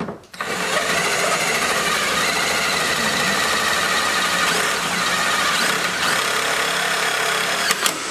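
Power drill driving a screw to fasten a carbon fiber diffuser fin to a Corvette's rear bumper, the motor running steadily under load for about seven seconds before stopping.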